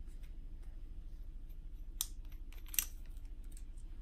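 Light clicks and taps of steel parts on the CKF milling attachment being handled, two sharper clicks about two seconds in and just before three seconds, over a steady low hum.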